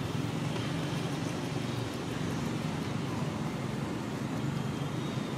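Steady outdoor background noise: a low, even rumble with a fainter hiss above it.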